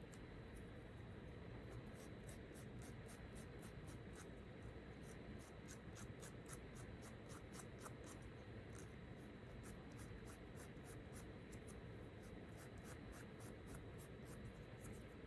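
Faint, quick scratching strokes, about three a second, like writing on paper, over a quiet room hum with a thin steady high whine.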